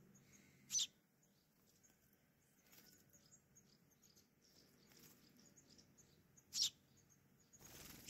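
House sparrow chirping: two short, sharp chirps about six seconds apart, over faint high bird twittering throughout.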